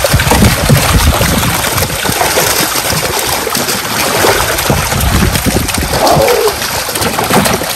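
A net full of fish thrashing and splashing hard in shallow water, a dense, continuous churning with irregular heavier splashes throughout.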